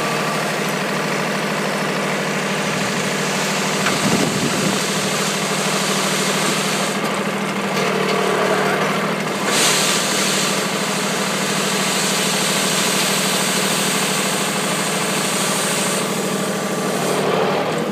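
Small tractor engine idling steadily while the hydraulic dump trailer it pulls has its bed tipped up to dump a load of dirt. There is a short rise in hiss about halfway through.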